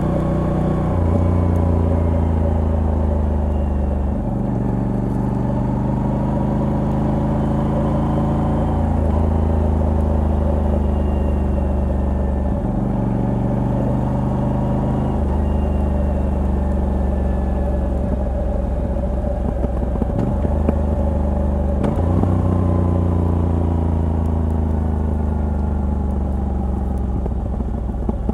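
Moto Guzzi V85TT's air-cooled 853 cc transverse V-twin, on the stock exhaust with a Mistral decat pipe, heard while riding. Its note steps up and down suddenly several times and glides in pitch between the steps, as throttle and gears change.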